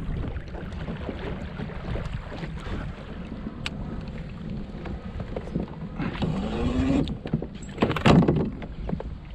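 Wind buffeting the microphone over water around a kayak on open water, with a few clicks. A rising tone comes about six to seven seconds in, and a short loud burst about eight seconds in.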